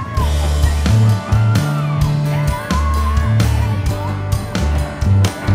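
Music with a drum beat and a bass line that moves from note to note.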